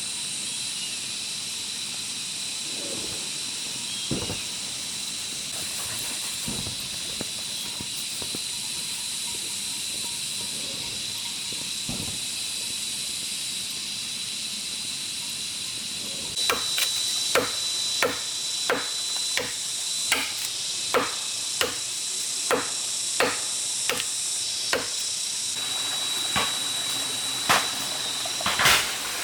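Steady high-pitched insect buzz from the forest. A bit over halfway through, regular chopping blows on bamboo begin, about three every two seconds.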